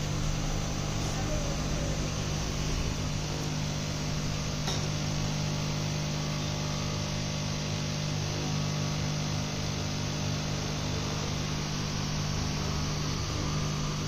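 Steady mechanical hum with an even rushing noise behind it, unchanging throughout.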